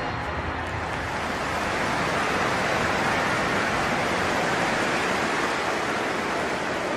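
Football stadium crowd cheering, a dense steady wash of many voices that swells a little in the middle.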